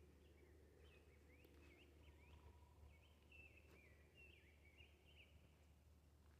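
A songbird singing faintly: a quick, varied run of short chirping and twittering notes that stops about five seconds in, over a low steady rumble.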